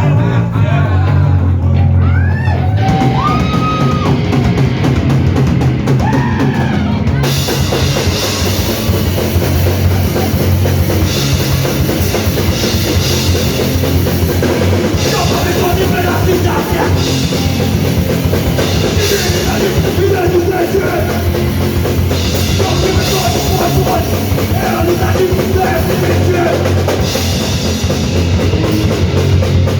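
Live crust punk band playing loud. At first only low held notes sound, with a few notes sliding in pitch. About seven seconds in, the drums with cymbals and the full band come in.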